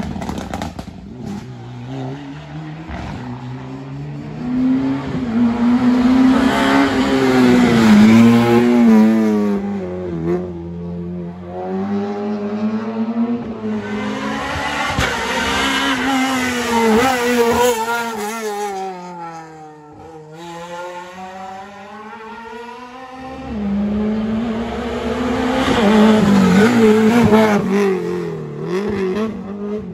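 Rally cars at full racing speed on a tarmac special stage, engines revving hard. The engine note climbs through the gears, drops on lift-off and braking, and climbs again. It swells loudest three times: about 4 to 10 s in, 14 to 18 s in, and 24 to 29 s in.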